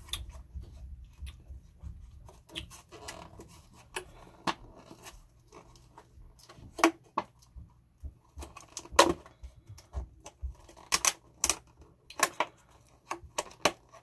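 Clear plastic clamshell food container being handled and opened by hand, giving irregular crinkles and clicks with a few sharper snaps about nine seconds in and again around eleven to twelve seconds in.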